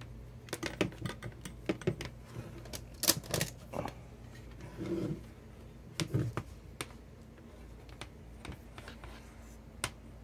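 A plastic Hakko FR-301 desoldering gun and its cord being picked up and moved about on a desk: a run of irregular clicks, taps and knocks, busiest about three seconds in, with a dull knock about six seconds in, over a faint steady low hum.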